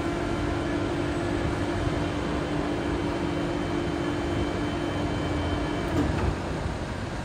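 Overhead crane hoist motor running with a steady whine over a low rumble as it lowers an injection molding machine's clamping unit, stopping about six seconds in with a click.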